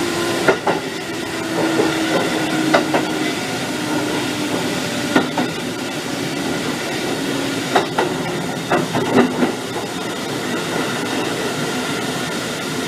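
Running sound of a Kotoden 1300 series electric train (former Keikyu 1000 series), heard from inside the car: a steady rumble with sharp clicks from the rail joints every second or two, and a faint whine that steps down in pitch over the first few seconds.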